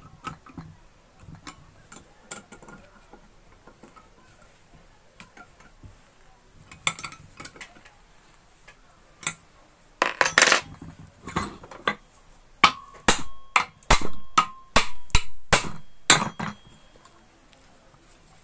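Metal hand tools working on a water pump's metal housing while its nuts are tightened. Light clicks and scrapes come first, then a burst of clatter, then a quick run of about ten sharp metallic knocks with a faint ringing tone.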